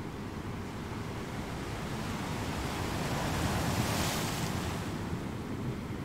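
Wind rumbling on the microphone over a steady hiss of gentle surf. The hiss swells to a peak about four seconds in, then eases.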